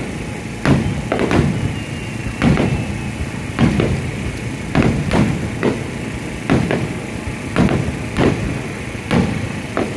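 Aerial fireworks shells bursting in a rapid series of bangs, more than one a second, each trailing off in echo.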